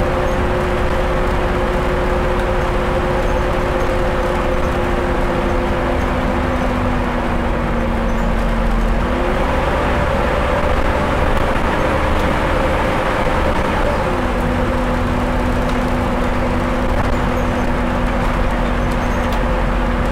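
Scania N230UD double-decker bus's five-cylinder diesel engine and drivetrain running under way, heard from inside the passenger saloon over road noise. A steady droning whine shifts pitch about nine seconds in and again about fourteen seconds in.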